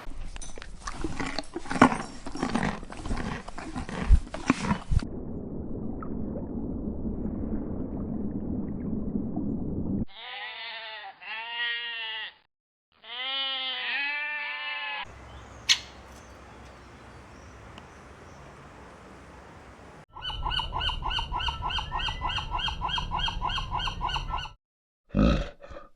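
A run of different animal calls, one clip after another. About ten seconds in come two bursts of fast, repeated arched calls, and near the end a fast, regular pulsing call.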